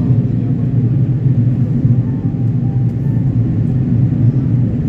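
Steady low cabin drone of an Airbus A330-300 in flight, heard from a window seat inside the cabin: engine and airflow noise with no change in level.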